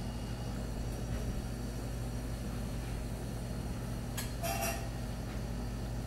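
Samsung RF28K9380SR refrigerator compressor running with a steady low hum, while the system, low on refrigerant, is being charged with R-134a through the low side. A brief scraping noise about four seconds in.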